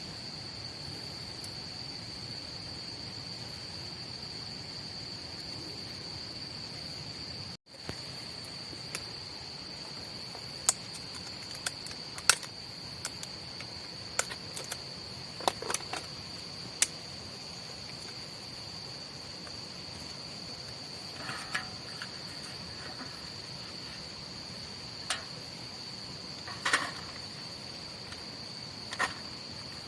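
An insect trilling steadily on one high pitch, with scattered sharp clicks and pops from about ten seconds in.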